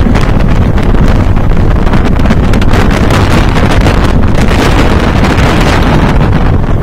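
Heavy wind buffeting the microphone of a rider on a Steel Force steel hyper coaster running at speed, over the rumble and clatter of the train on its track.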